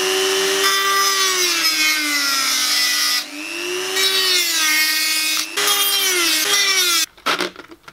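Handheld rotary tool with a cut-off disc cutting into the plastic shell of a cheap toy drone. Its high whine sags in pitch as the disc bites and recovers as it eases off, breaks briefly twice, and stops about a second before the end.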